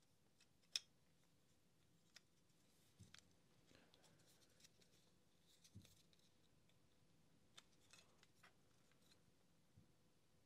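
Faint clicks and light handling noises of hard plastic parts being pressed and fitted together as the cordless heat gun's rear cap assembly is closed up, with one sharper click about a second in.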